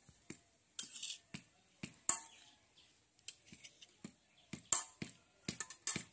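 Metal spoon scraping ground paste off a flat stone grinding slab and tapping on a steel bowl: a run of short, irregular scrapes and clicks.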